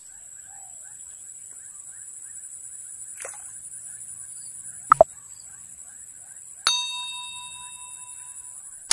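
Subscribe-button overlay sound effects: two quick clicks about five seconds in, then a bell chime that rings and fades over about two seconds. Underneath is a faint, steady outdoor background.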